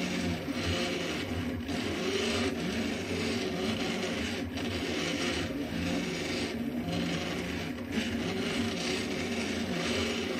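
Delta 3D printer printing, its stepper motors whining in pitches that rise and fall as the print head moves, over a hiss that swells and fades.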